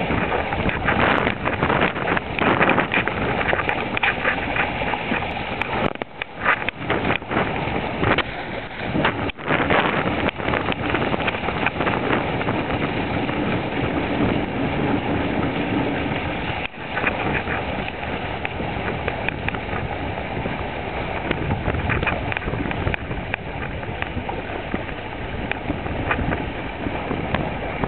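Wind buffeting the microphone, with water rushing past the hulls of a Sailbird trimaran sailing in a 10–20 knot breeze: a loud, uneven rush that rises and falls with the gusts and dips briefly three times.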